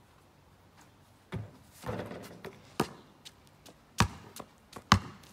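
Basketball bouncing on pavement as it is dribbled, a thud about once a second starting a little over a second in, the loudest two near the end.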